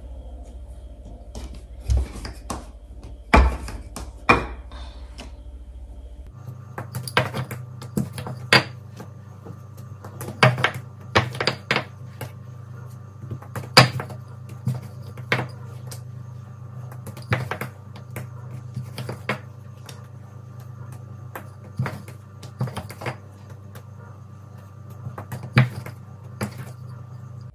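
Irregular sharp knocks and taps of hands and kitchen utensils on a work surface while making dumpling dough, over a steady background hum that changes about six seconds in.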